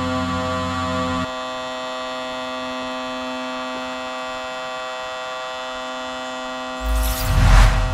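A steady, many-toned hum from a running motor; its lowest tones drop away about a second in. Near the end a loud rumbling rush comes over it.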